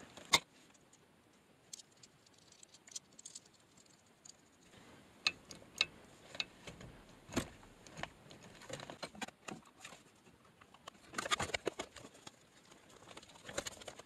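Scattered light clicks, taps and rustles of hands working the short shifter and fitting the rubber shift boot and console trim back over it, with a sharp click just after the start and a quick run of clicks about eleven seconds in.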